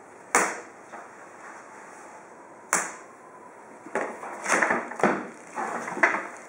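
A solar panel being handled in its cardboard box: two sharp knocks as the panel frame bumps, the second leaving a faint ring, then a run of scraping and rustling from the cardboard and foam packing.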